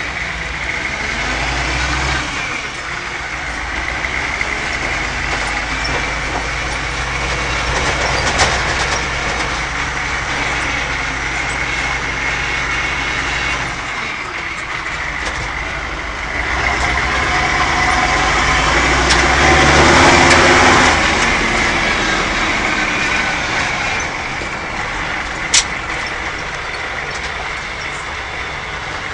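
GM 6.5-litre turbo diesel in an International Scout II pulling under way, heard from inside the cab. Its note steps as the driver works through the NV4500 five-speed's gears: it drops out briefly about halfway through, then builds to its loudest about two-thirds in. A single sharp click comes near the end.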